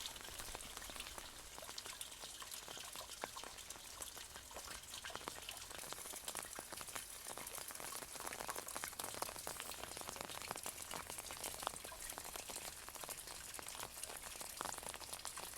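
Heavy rain falling steadily: a dense hiss of many small raindrop ticks.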